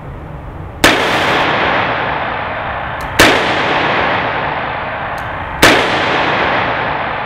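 Three shots from an Alfa-Proj 2363 Sport revolver, about two and a half seconds apart, each followed by a long echoing decay in the indoor range. A faint click comes just before the second and third shots.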